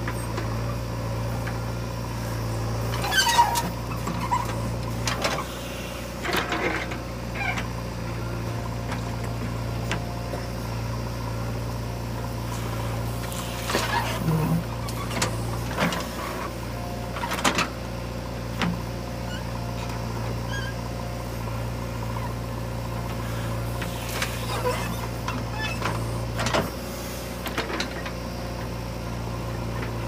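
JCB 3DX backhoe loader's diesel engine running steadily under digging load, with short clanks and scrapes from the bucket and boom several times as it digs and swings soil.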